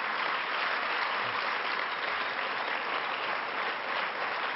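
A large seated audience applauding steadily, a dense even clapping.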